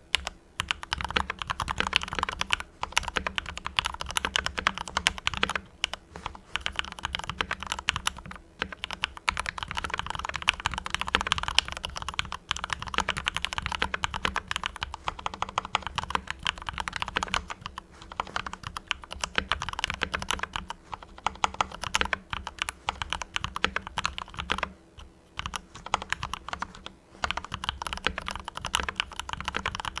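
Fast typing on a Mars Pro mechanical keyboard with fully lubricated Cherry MX Red linear switches: a dense run of keystrokes, broken by a few short pauses.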